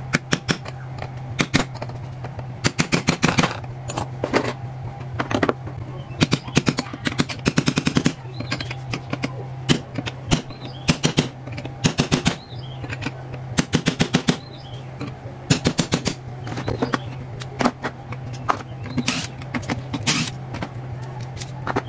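Hammer striking a steel punch held against a car door check's metal arm clamped in a bench vise, sharp metallic taps coming in quick runs and single blows, driving out the retaining clip. A steady low hum lies under the taps.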